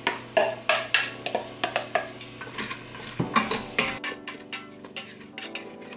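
Wooden spoon knocking and scraping chopped carrots and onions out of a bowl into an Instant Pot's stainless steel inner pot: a quick run of sharp clacks. About four seconds in it turns to quieter stirring of the vegetables in the pot.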